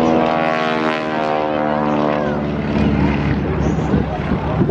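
Single-engine propeller aircraft flying past overhead in a display. Its engine drone falls slowly in pitch as it goes by, and the tone thins out after about three seconds.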